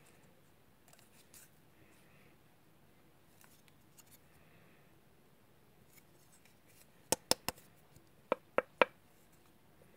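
Plastic beard-shaping template comb being handled: faint rustling and rubbing, then two quick runs of three sharp plastic clicks near the end.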